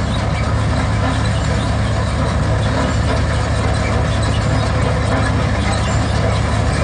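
Groundnut combine harvester running steadily as it picks up windrowed groundnut plants: a loud, even engine hum under the noise of its pickup drum and threshing works.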